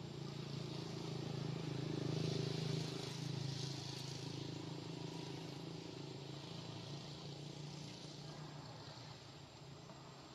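A distant engine's steady hum, growing louder about two to three seconds in and then slowly fading, as of a motor vehicle passing by.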